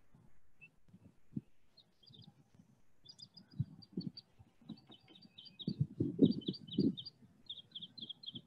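A bird chirping in quick runs of short high notes, about four or five a second, from about three seconds in, with the low scratchy rubbing of a pencil shading on a drawing pad underneath, loudest around six to seven seconds in.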